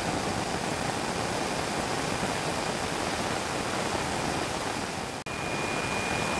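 QF-16 (converted F-16) jet engine running on the ground: a steady, even rushing noise. It breaks off briefly a little past five seconds in, and after that a steady high whine sits over the noise.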